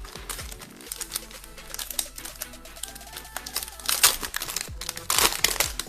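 Background music with trading-card handling over it: quick clicks and crinkling of cards and foil pack wrappers, with a louder crinkling rasp about four seconds in and again near the end.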